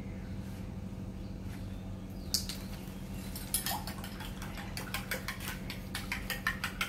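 A spoon clinking and tapping against a bowl, starting a little over two seconds in and turning into quick, light clinks several a second near the end, over a steady low hum.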